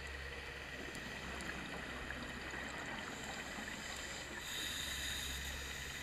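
Underwater ambience: a steady low hum and hiss, with a brighter hiss coming in about two-thirds of the way through.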